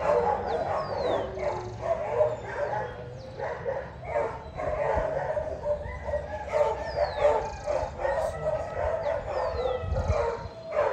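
Dogs barking and yipping over one another without a break, with some howling.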